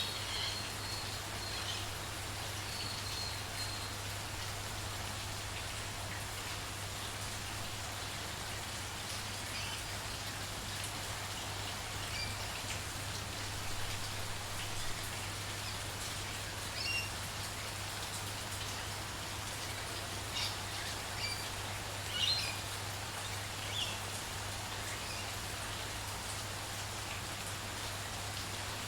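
Steady light rain falling, with short bird chirps scattered through it every few seconds. A steady low hum sits underneath.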